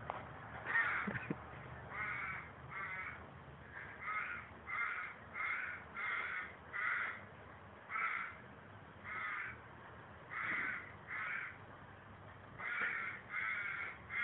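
Crows cawing over and over: about fifteen caws spaced roughly a second apart, some in quick pairs.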